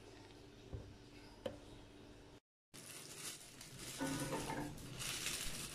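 Two soft clicks as a cereal bag is handled over a bowl. Then, after a brief break, a steady hiss with plastic-bag rustling and clattering as dumplings are tipped from a plastic bag into a small saucepan of water on a gas stove.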